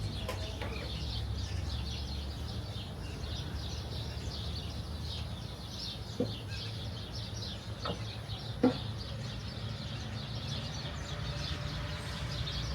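Birds chirping busily and without pause, many short high calls overlapping. A steady low hum runs underneath, and a few sharp knocks come in the second half, the loudest about two-thirds of the way through.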